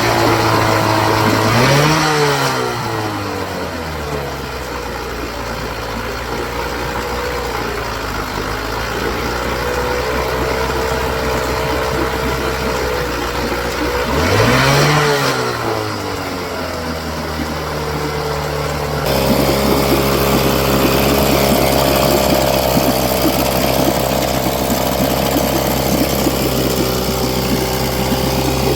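1969 Chrysler 7 hp two-stroke outboard motor running on a test stand after a carburetor rebuild and water pump replacement. It is revved briefly twice, rising in pitch and dropping back, once about two seconds in and again about halfway. About two-thirds of the way in it steps up to a steadier, louder run.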